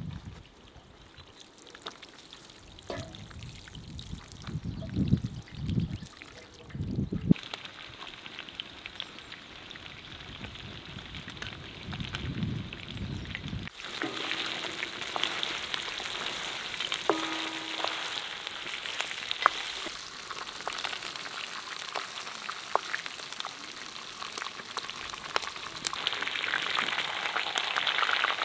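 Water pouring from a metal watering can onto potted flowers, then, from about halfway, guinea fowl pieces sizzling in hot oil in a wide pan over a wood fire, a steady hiss with many small crackles.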